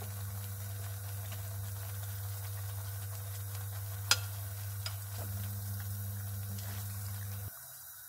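A pan of cream sauce sizzling on the stove as penne is tipped in from a metal bowl, over a steady low hum. There is one sharp clink about four seconds in, and the hum cuts off near the end.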